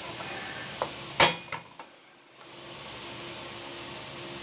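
Pliers and loose metal parts clicking and knocking against the riding mower's steel frame: a few sharp clicks in the first two seconds, the loudest a little over a second in. A steady low hum runs underneath.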